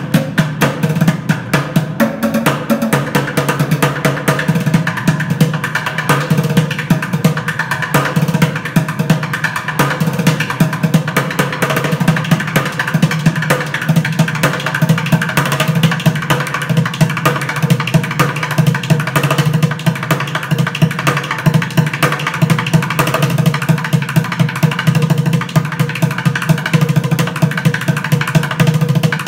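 Two drummers beating buckets with drumsticks: bucket drumming in a fast, continuous rhythm of dense strikes.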